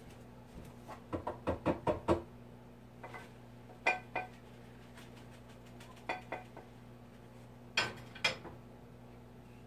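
Metal kitchen clatter from lifting fries out of a small electric deep fryer and tipping them onto a plate. A quick run of about six knocks comes about a second in, followed by a few pairs of sharp clinks.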